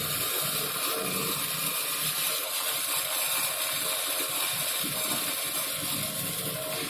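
Shielded metal arc welding on carbon steel pipe: the stick-electrode arc crackles and sizzles steadily while the root pass is run with an E6011 electrode.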